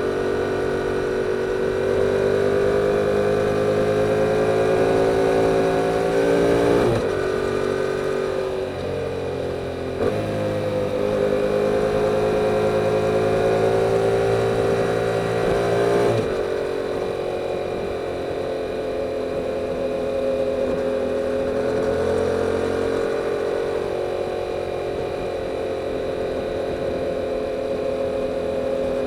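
A 2022 Yamaha R7's 689 cc parallel-twin engine on its stock exhaust, heard while riding. The engine pitch climbs steadily, then changes abruptly with gear changes about 7, 10 and 16 seconds in, and holds fairly steady as the bike cruises afterwards.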